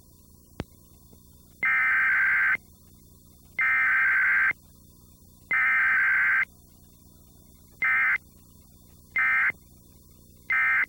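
Emergency Alert System SAME digital data bursts on a cable TV channel: three header bursts of about a second each, then three short end-of-message bursts, the sequence of an EAS Required Weekly Test.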